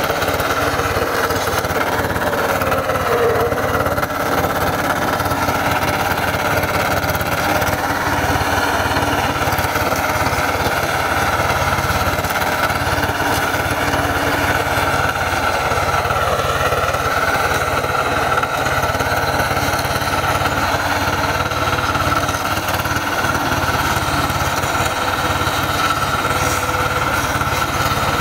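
Single-cylinder diesel engine of a two-wheel hand tractor running steadily under load as its rotary tiller chops through clods of soil.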